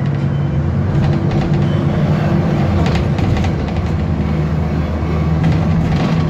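Alexander Dennis Enviro 400 double-decker bus engine running as the bus drives along, heard from inside on the upper deck, a steady low drone with rattles from the bodywork.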